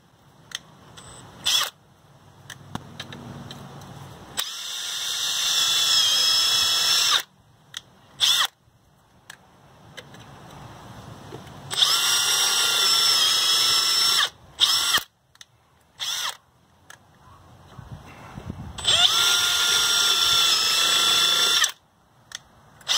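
Cordless drill with a self-centering bit drilling pilot holes into a boat hull: three steady whining runs of about three seconds each, with short knocks in the pauses between holes.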